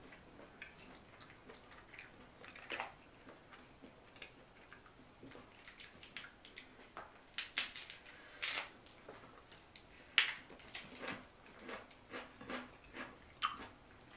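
King crab leg shell being cracked and pried apart by hand: scattered short crackles and clicks, with a few louder snaps in the second half, mixed with eating sounds.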